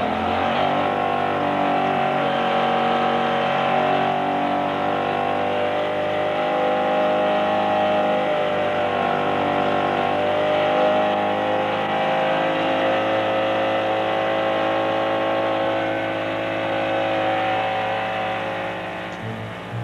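Honda engine run at high, steady revs on a test dynamometer, rising in pitch just at the start and then holding a steady, many-toned whine.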